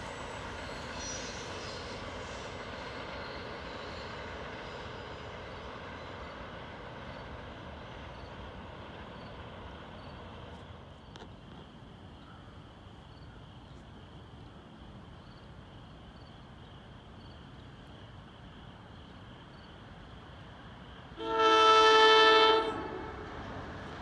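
Rumble of a train fading away over the first ten seconds or so. Then, about 21 seconds in, an approaching commuter train sounds its air horn in one loud blast of several tones at once, lasting about a second and a half.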